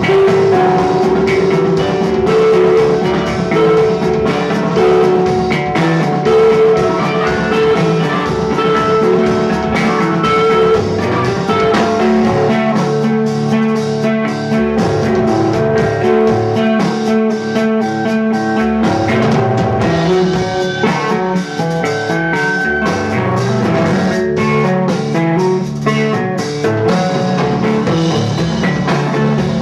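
A live rock trio playing: electric guitar, bass guitar and drum kit, with no vocals.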